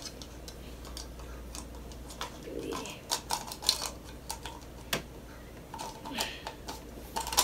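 Hard plastic toy egg halves clicking and scraping as they are twisted against each other to line up a zigzag seam, with scattered sharp clicks.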